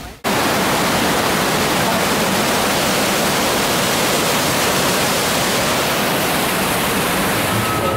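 Artificial waterfall cascading down rockwork: a steady, even rush of falling water.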